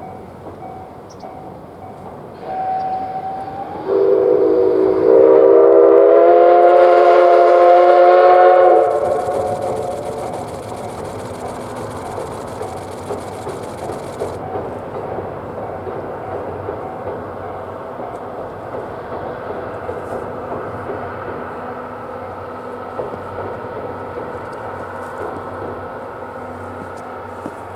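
C11 steam locomotive's steam whistle giving one long blast of about five seconds, its pitch rising slightly as it opens and then cutting off. After the blast the train keeps up a steady running rumble.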